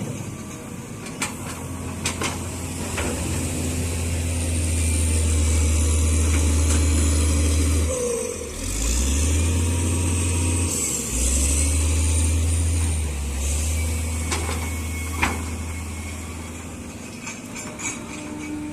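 Hitachi excavator's diesel engine working under hydraulic load while digging cargo out of a truck bed. It rises and holds strong through the middle, dips briefly twice, then eases off, with a few sharp metallic clanks.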